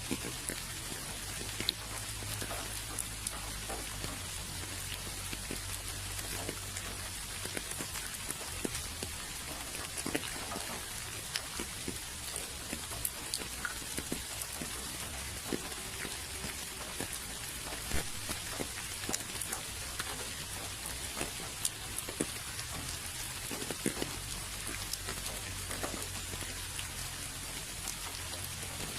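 Steady rain falling, a constant hiss with scattered louder drops ticking on a surface, over a low steady rumble.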